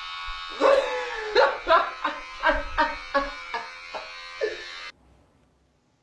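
A man's loud, repeated bark-like yelps or laughs, about two a second, over a steady buzzing drone. Both stop abruptly about five seconds in.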